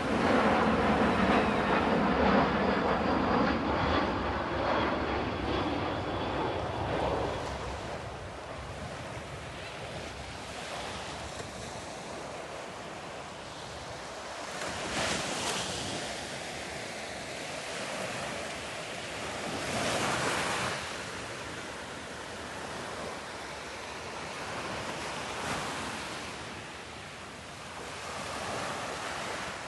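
Sea waves washing onto the shore, the noise swelling about every five seconds, with wind on the microphone. The rushing noise is louder for the first several seconds.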